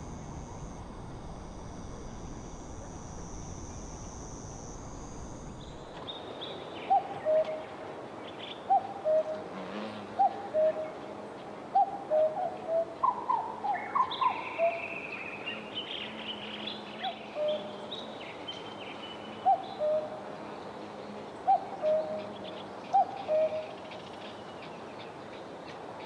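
Common cuckoo calling its two-note "cuck-oo", the second note lower, repeated about a dozen times from about six seconds in. Higher chirps of other birds come in around the middle. Before the calls start there is only steady outdoor background noise.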